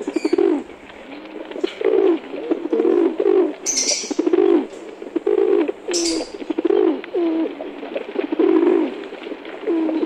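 Domestic pigeons cooing again and again, low rolling coos about once a second.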